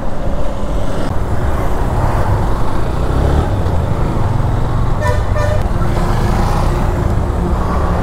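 Honda Hornet 160R motorcycle riding through road traffic, its engine and the wind making a steady rumble, with a vehicle horn honking briefly about five seconds in.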